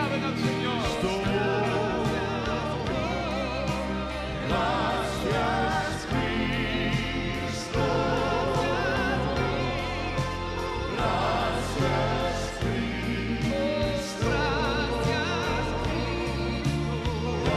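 Gospel worship music: singing with a wide vibrato over sustained, held chords.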